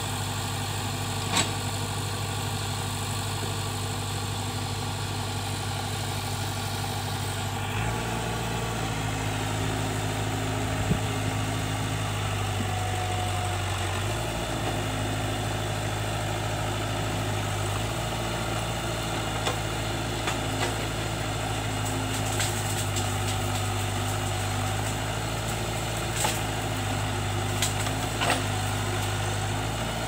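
Case 580K backhoe loader's diesel engine running steadily while the backhoe arm works, with the engine note shifting about eight seconds in. Occasional sharp clicks and cracks come through, more often near the end.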